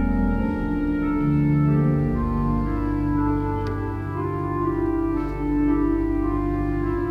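Organ playing slow, held chords that change every second or so: offertory music during the preparation of the gifts at Mass.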